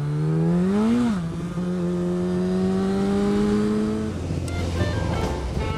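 Motorcycle engine revving up hard about a second in, then pulling steadily with its pitch climbing slowly. About four seconds in the engine note drops out into a rush of wind noise, with the first notes of music coming in.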